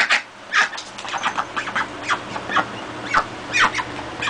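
Domestic duck quacking in short, repeated calls, coming irregularly two or three times a second as it spars with a cat.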